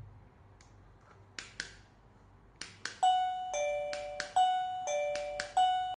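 A few sharp plastic clicks, then a wireless plug-in doorbell receiver plays an electronic chime from about halfway in: clear ringing notes alternating high and low, ding-dong, ding-dong, ding, each note struck sharply and fading.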